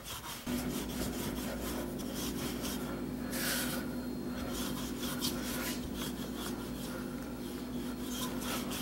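Wooden rolling pin rolling and rubbing over floured puff pastry dough on a wooden table, a run of short scraping strokes. A steady low hum comes in about half a second in and carries on underneath.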